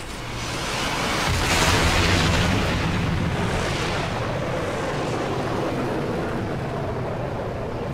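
Fighter jet taking off from an aircraft carrier: the jet engine noise swells to its loudest about two seconds in, then carries on steadily as the jet climbs away.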